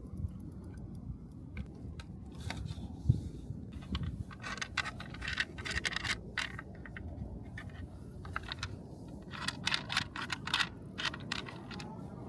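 Hands handling e-bike parts and their packaging: scraping and rustling with quick clicks in two spells, and a single knock about three seconds in.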